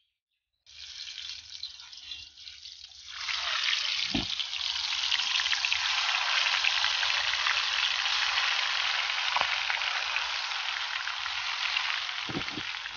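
Turmeric-coated catfish (magur) pieces frying in hot mustard oil in an iron kadai: a steady sizzle that starts about a second in and grows louder about three seconds in. A few dull knocks come through it.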